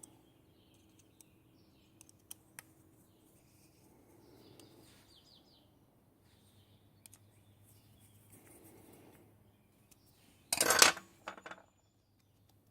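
Small metal clicks and handling of a hex driver and clutch parts, with a louder metallic clatter of about half a second near the end.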